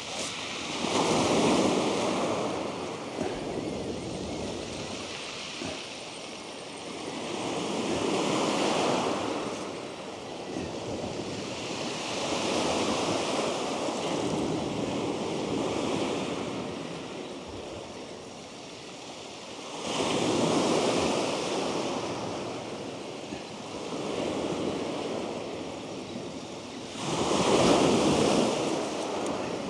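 Sea waves breaking on a shingle beach, the surf noise swelling and fading in repeated surges every several seconds.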